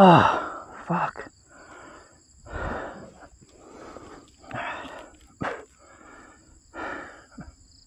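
A man breathing hard from exertion: a strained groan falling in pitch at the start, then heavy, rasping breaths about once a second.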